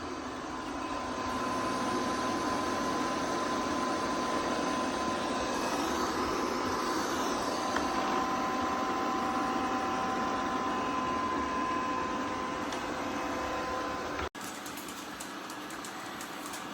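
Robot vacuum cleaner running: a steady whir from its suction fan and brushes, with a thin, steady high whine over it. Near the end the sound cuts off abruptly and gives way to a quieter hiss.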